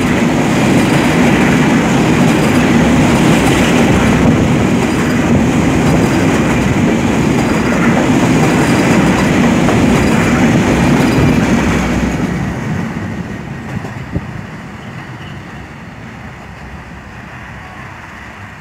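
Loaded container flat wagons of a freight train rolling past close by, a loud, dense rumble of steel wheels on the rails. About twelve seconds in the last wagon goes by and the sound fades steadily as the train moves away.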